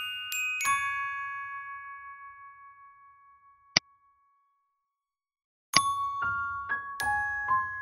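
Background music of struck, chiming notes. A held note rings and fades away over the first few seconds, and a short sharp click comes near four seconds. After about a second and a half of silence, the tune starts again with a run of new notes near six seconds.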